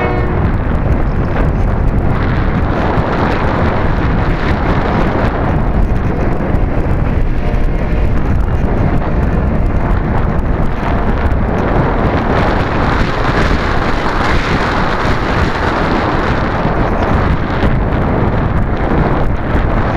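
Strong, steady wind rushing over the microphone of a camera mounted on a PZ Radian sailplane in flight.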